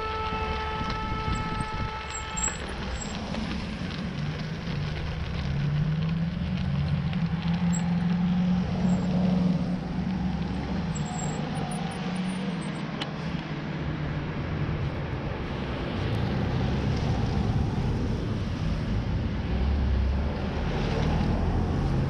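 Road traffic: car engines and tyre noise with wind on the microphone, heard from a bicycle moving along a line of queued cars. A steady pitched tone, like a horn, sounds for the first two seconds or so. A low engine hum rises and wavers in the middle.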